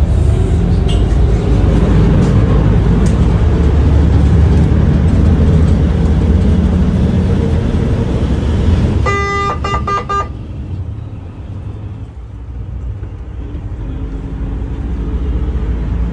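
A ferry under way: its engines give a steady low rumble, with rushing wind and wake water. About nine seconds in, a short broken horn-like toot sounds for about a second.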